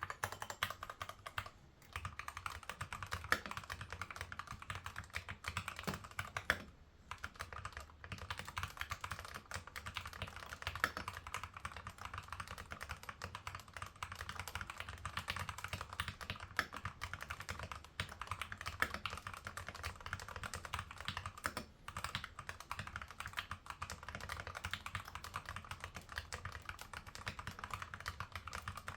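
Steady fast typing on an Epomaker TH80-X mechanical keyboard with Gateron Black linear switches: a dense stream of key clacks, broken by a couple of brief pauses.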